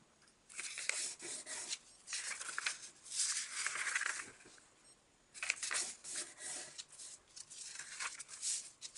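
A square of origami paper being folded in half and creased flat by hand, then unfolded and folded the other way: several dry rustles and sliding scrapes of paper, each about a second long, with short pauses between them.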